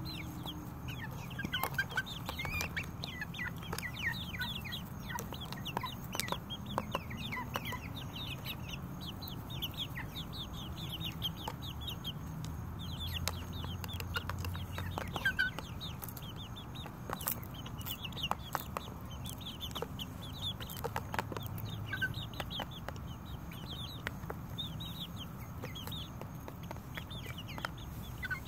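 Flock of six-week-old chicks peeping constantly, a stream of short high falling notes, while they feed. Scattered sharp clicks run through it, beaks pecking at the plastic lettuce bowl.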